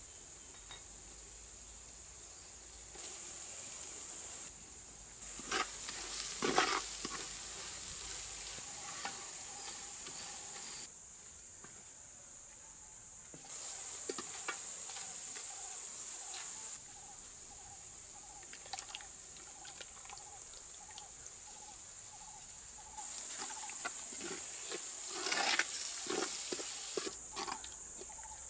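A wooden spoon stirring and scraping spices, onions and green chillies frying in a clay pot, in uneven bursts of clicks and scrapes, loudest twice. A steady high insect chirring runs behind it.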